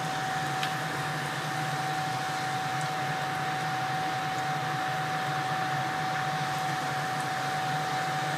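Strips of dough frying in hot oil in a deep fryer: a steady sizzling hiss over a constant mechanical hum.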